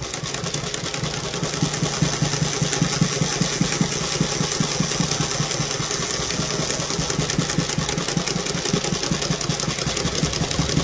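Vintage Cornely L chainstitch embroidery machine running, with a rapid, even mechanical clatter of stitching as it sews thick fuzzy yarn down in loops with a wrapping thread.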